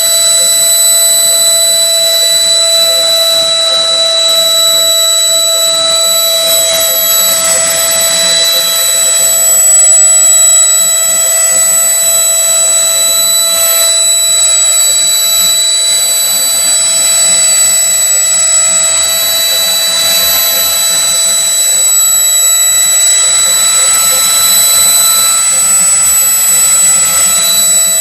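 Multi-axis CNC wood carving machine running, its spindle giving a steady high whine over a hiss of cutting that swells and fades a couple of times.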